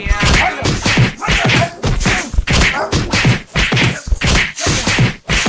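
Rapid series of punch and slap blows, about four a second, landing on a man's back in a beating.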